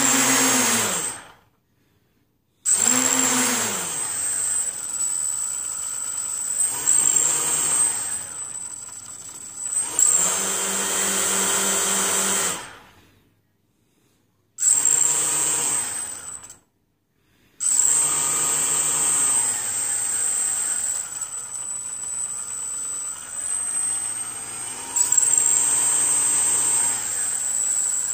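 Four small brushless quadcopter motors with propellers, driven by Emax Simon 12A speed controllers, spinning up and winding down again and again as the throttle is varied, over a high steady whine. They stop completely three times, for a second or so each: a little after the start, about halfway through, and again a few seconds later.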